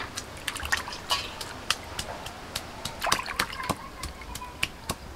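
Whole pomfret fish being washed by hand in a steel bowl of water: water splashing, sloshing and dripping in many short, sharp strokes as the fish are rubbed and lifted.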